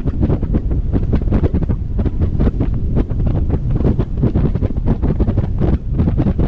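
Wind buffeting the microphone of a camera mounted on an open-top car as it drives: a loud, rough, low rumble that flutters irregularly throughout.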